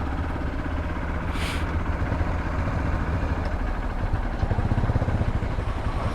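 Motorcycle engine running at idle with a steady low rumble, growing a little stronger in the last second and a half. A short hiss comes about a second and a half in.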